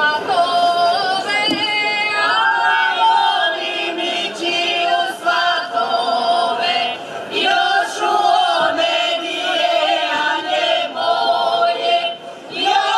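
A group of women singing a traditional Šokac wedding song unaccompanied, loud and continuous.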